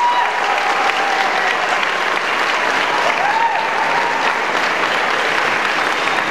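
An audience applauds steadily after a dance number ends. A couple of drawn-out cheers rise above the clapping, one at the start and one about three seconds in.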